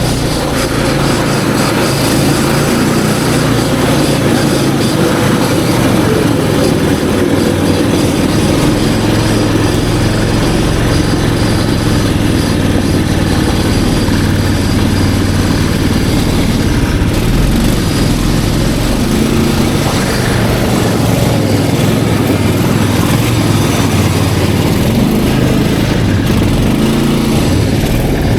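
Snowmobile engine running steadily and loud.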